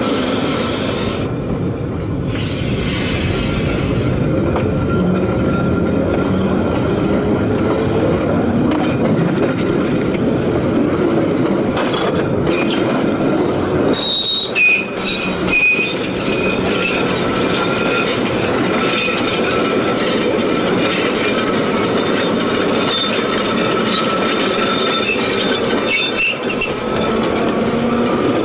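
Trieste–Opicina tram cars running close past on curved track: steel wheels rumbling and squealing on the rails, with a cluster of sharp clicks about halfway through.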